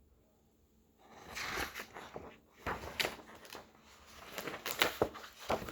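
Irregular rustles and taps of a paper picture book being handled and its pages turned, starting about a second in.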